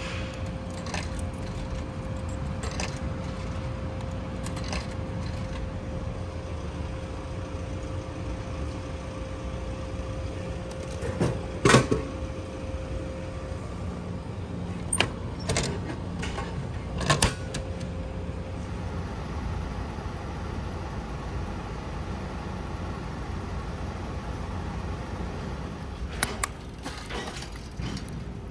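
Coins clicking one by one into a vending machine's coin slot, three drops about two seconds apart, over a steady street hum and a steady tone that stops about halfway. About halfway comes a loud clunk as the purchase drops into the tray, then clacks of the tray flap as a hand reaches in, and near the end a few sharp clicks of a drink can's pull tab being opened.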